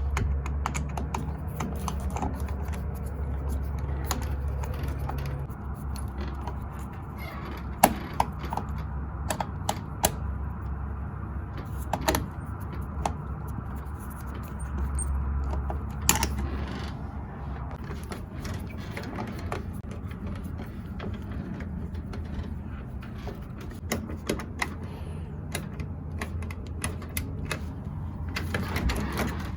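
Scattered clicks and knocks of a Schlage keypad deadbolt's parts being handled and fitted back together during reassembly, with a few sharper knocks about 8, 12 and 16 seconds in, over a steady low hum.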